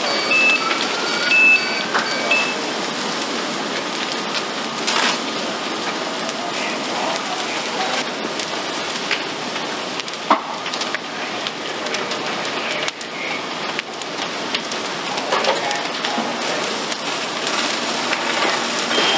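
A fully involved apartment building fire burning with a steady crackling hiss, broken by occasional sharp cracks and pops. A few short high beeps sound in the first couple of seconds.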